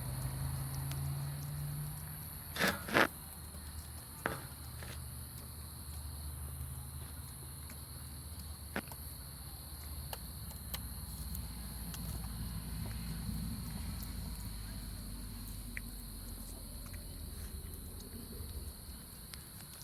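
Night insects, such as crickets, chirring steadily in high tones. About three seconds in there are two sharp knocks, and a lighter one follows a second later.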